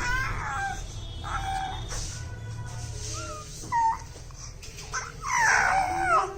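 Baby squealing and whining in short high-pitched cries that slide up and down, with a longer, louder one about five seconds in.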